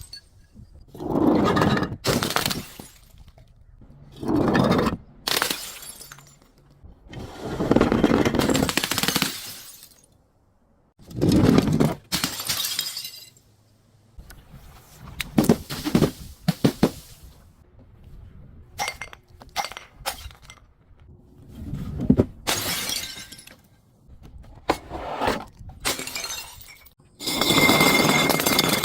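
Glass bottles being crushed and broken, a crunching, shattering burst every few seconds, about nine in all, with some sharp clinks and brief ringing of glass between them.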